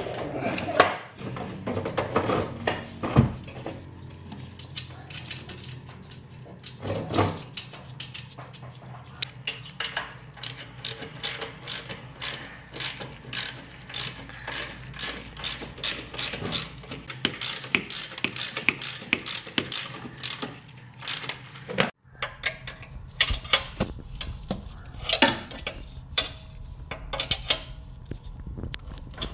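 Ratchet wrench clicking in quick runs as it tightens the nuts holding a stock exhaust downpipe to the turbocharger outlet flange. A few heavier metal knocks come in the first few seconds.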